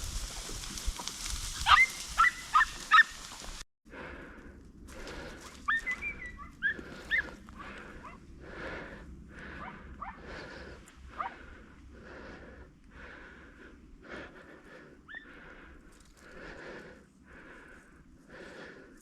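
Podenco hunting dog yelping four times in quick, high, falling cries. After a sudden cut, it breathes in quick, even pulses, with a few short yips.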